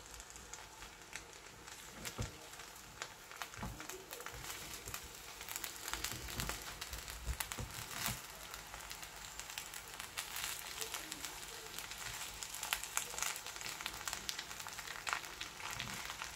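Irregular clicks and scrapes of a metal spoon against a frying pan as cooked rice is stirred and folded, over a faint steady hiss.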